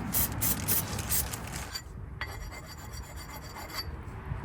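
Sanding stone rubbed back and forth over the pad-mating surfaces of a brake caliper bracket to take off burrs and rust, in quick rasping strokes about four or five a second. About two seconds in the rubbing stops, leaving a quieter stretch with a single click.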